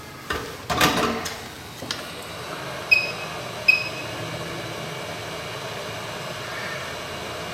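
A few clicks and knocks of tools being handled, then two short electronic beeps from a hot-air rework station and its air blowing steadily, heating the solder paste on a chip's reballing stencil to form the solder balls.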